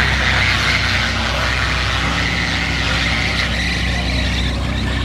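Lamborghini Aventador's V12 engine running at low revs as the car crawls past: a loud, steady rumble.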